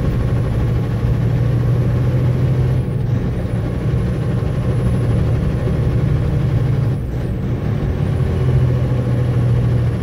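A heavy truck's engine runs steadily under way, a deep drone whose note and loudness dip briefly twice, about three and seven seconds in.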